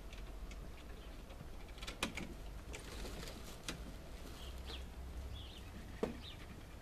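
Scattered clicks and knocks from someone walking with rustling plastic bags and opening a wooden shed door, the loudest knock about six seconds in as the door swings open. A few faint, short bird chirps sound in the background.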